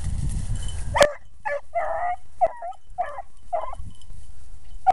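Beagles baying on a rabbit's trail, a run of short high yelping barks at about two a second starting about a second in: the hounds opening on fresh scent from a rabbit just jumped.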